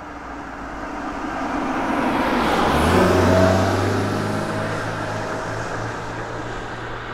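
A motor vehicle driving past: its engine and road noise build to a peak about three seconds in, the engine note drops in pitch as it goes by, and the sound then slowly fades away.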